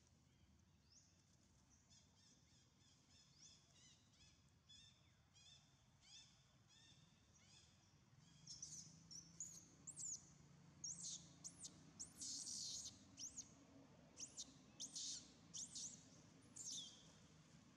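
Faint high chirps repeating about twice a second, then from about halfway many sharp, high-pitched squeals in quick runs. These are typical of a baby long-tailed macaque held down by its mother.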